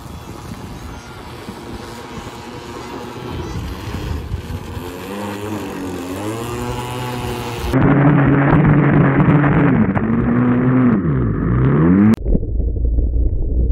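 Air-cooled string-trimmer engines in RC racing boats running at speed, their pitch rising and falling with the throttle. About halfway through one engine is suddenly much louder and closer, its note swooping sharply up and down. Near the end the sound changes abruptly to a low steady rumble.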